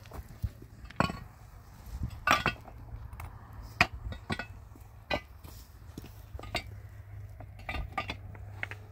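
Irregular knocks and clinks of hard objects being handled and struck, about a dozen sharp hits spread unevenly, the loudest near the start, over a low steady hum.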